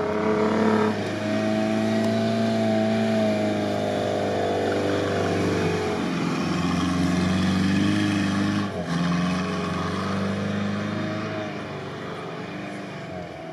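Toyota Land Cruiser 70's engine labouring under load as the 4x4 pushes through deep sand, held at fairly steady revs. The note dips about six seconds in, breaks briefly near nine seconds, then runs on a little quieter. The vehicle is going heavily: short on pull in second gear and short on speed in third.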